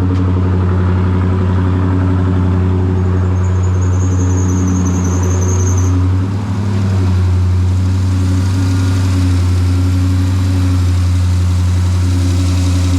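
Dodge 6.4-litre Hemi V8 idling steadily, just started after a new water pump, tensioner and drive belt were fitted. A thin high whistle sounds for about three seconds around the middle.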